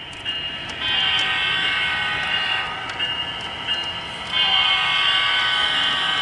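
HO-scale model locomotive's electronic horn sounding long, chord-like blasts through its small onboard speaker, starting about a second in and sounding again more loudly from about four and a half seconds in.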